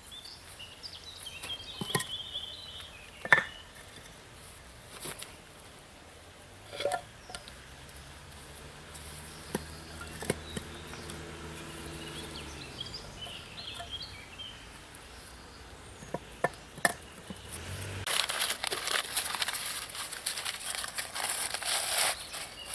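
Open roasting fire crackling, with scattered sharp pops and knocks. A faint low hum rises and fades through the middle, and near the end the crackle swells into a louder rushing stretch of about four seconds.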